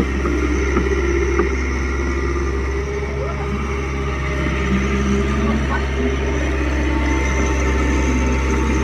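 Preet 949T track-type combine harvester's diesel engine running steadily, a low even drone.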